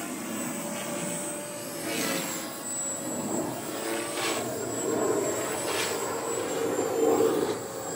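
Electric RC helicopter (Blade 450 3D with an E-flite 3600kv motor, governed) in flight: a steady high motor and gear whine over the rotor noise, the rotor whoosh swelling a few times as it manoeuvres.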